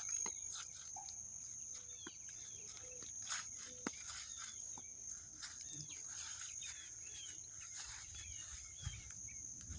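Faint outdoor ambience: a steady high-pitched cricket drone, with many short bird chirps scattered throughout and a few soft clicks.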